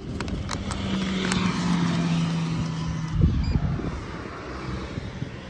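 A drink vending machine's banknote acceptor runs its motor with a steady hum as it draws in a 1000-yen note. It stops with a thud about three seconds in.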